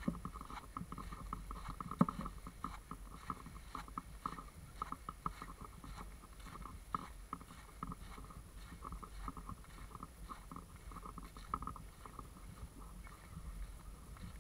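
Handling noise from an SJ4000 action camera carried on a walk: a low rumble with an irregular patter of faint clicks, and one sharper click about two seconds in.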